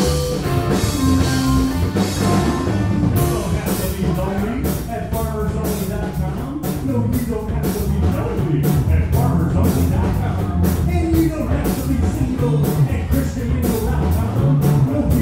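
Live rock band playing: electric bass, electric guitar and a drum kit keeping a steady beat, with a man singing into the microphone.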